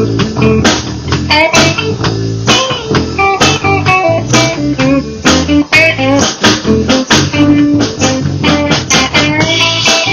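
Live band playing amplified: electric guitar and electric bass over a drum kit, with regular drum hits.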